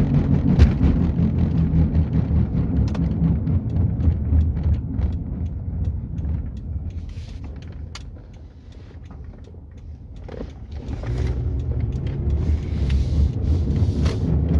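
Low droning rumble of a car being driven, from a worn front passenger-side wheel bearing. It dies away for a few seconds in the middle and comes back.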